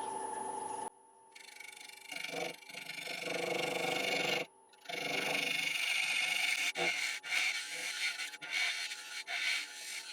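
Parting tool cutting a recess into a damson bowl blank spinning on a wood lathe: an uneven rasping, scraping noise that swells and fades over a faint motor hum. A steady hum cuts off abruptly about a second in, and there is a brief sudden gap midway.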